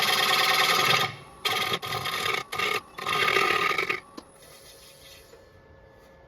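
Turning tool cutting across the face of a wood blank spinning on a lathe: a rough scraping in several passes that stops about four seconds in, leaving the lathe's motor hum.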